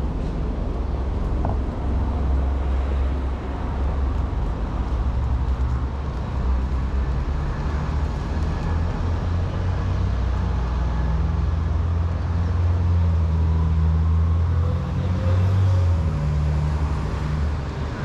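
Road traffic: a steady low rumble of vehicle engines on a city street, with one engine hum swelling for a while in the second half.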